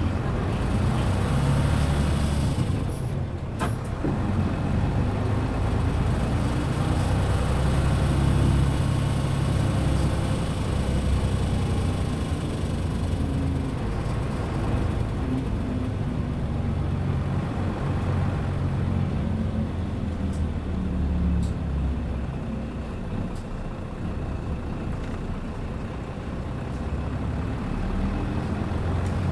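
Hino KC-RU1JJAA short-body bus with its medium-duty engine, heard on the move: a steady low engine drone that shifts in pitch as the bus changes speed. Two sharp clicks come about three to four seconds in. This bus is known for its many odd noises and rattles.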